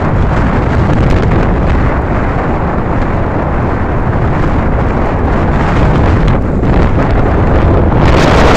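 Wind buffeting the phone's microphone on a moving two-wheeler, with road and vehicle noise beneath; a steady rushing that grows louder and brighter near the end.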